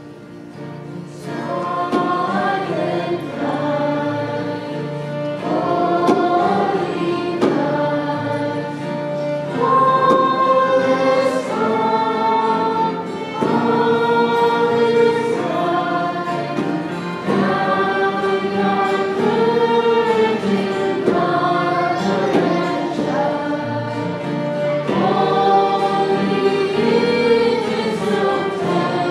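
Choir singing a slow melody, each note held for a second or more, coming in about a second in.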